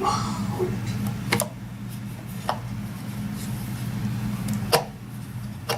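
Washing machine drive parts clicking and knocking as they are handled and fitted into place: about four sharp clicks, spread out, over a steady low hum.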